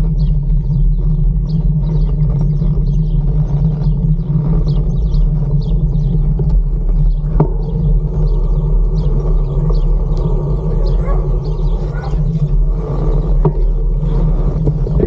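Steady low wind rumble on a bike-mounted camera's microphone while cycling, mixed with tyre noise on the paved path.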